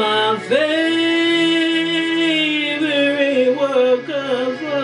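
A song with a singing voice: it swoops up into one long held note, then comes down in a wavering run.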